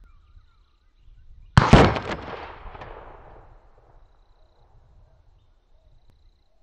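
A single shot from a Western Big Bores Bushbuck .45-calibre big bore PCP air rifle: a sharp crack and, a fraction of a second later, a louder hard hit, dying away over about two seconds.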